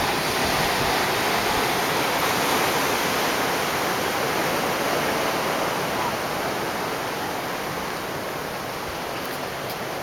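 Ocean surf: a steady wash of breaking waves that slowly fades over the second half.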